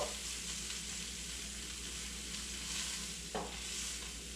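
Sausages frying in a pan on the stove, a steady sizzling hiss, with one short tap about three seconds in.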